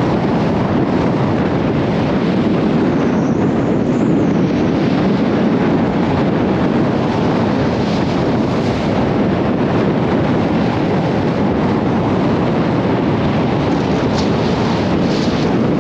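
Strong wind buffeting the microphone: a loud, steady rushing noise.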